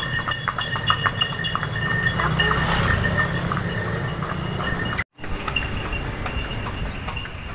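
Hooves of a delman's horse clip-clopping in a steady rhythm as the horse-drawn cart rolls along. The sound breaks off suddenly just after halfway and carries on more faintly.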